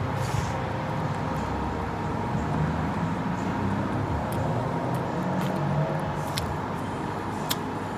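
Eating sounds: chewing fried chicken and rice and handling it by hand, with a few sharp clicks, over a steady background rumble and hum.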